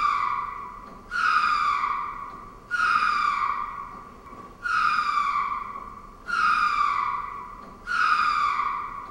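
Ring-tailed lemur calling over and over, a new call about every one and a half seconds. Each call starts sharply, slides a little down in pitch and fades away.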